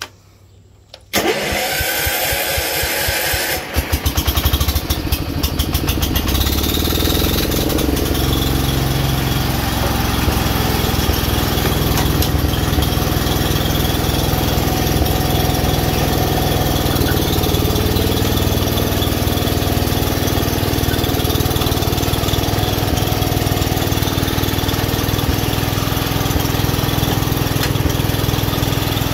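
John Deere Variable Speed garden tractor's engine being restarted: the electric starter cranks it for about two and a half seconds, the engine catches and revs briefly, then settles into steady running.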